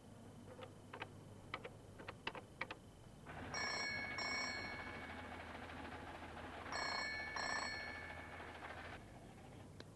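A quick run of clicks from the buttons of a push-button telephone being dialled. Then a telephone rings twice, each ring a double ring.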